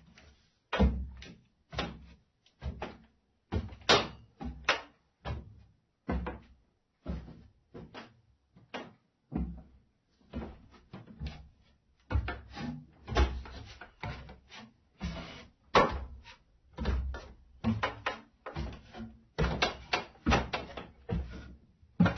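Footsteps in socks on wooden stairs: a steady series of soft, deep thuds, about one to two a second, with some creaks and scuffs of the treads between steps.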